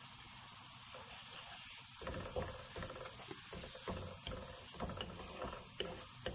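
Tomato-and-spice masala sizzling in hot oil in a pan, with fried onions just added. From about two seconds in, a spatula scrapes and stirs it around the pan with irregular clicks and scrapes.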